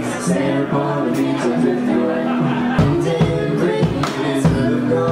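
Live band playing amplified music: held electric guitar chords over drums, with two heavy drum hits in the second half.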